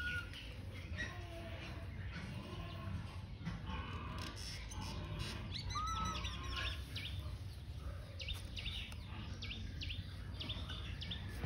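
Scattered short, high animal chirps and squeaks, with a short rising call at the start and another about six seconds in, and a quick run of chirps near the end, over a steady low hum.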